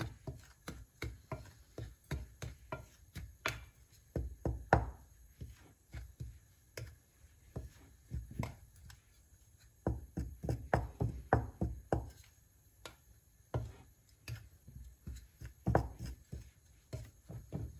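A spoon knocking and tapping against a bowl in bunches of quick strokes while stirring dry yeast and sugar together for bread dough.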